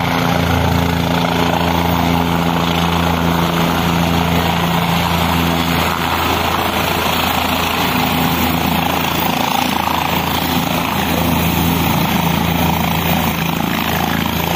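Helicopter running nearby: a steady, loud drone of turbine engine and rotor that keeps up without a break.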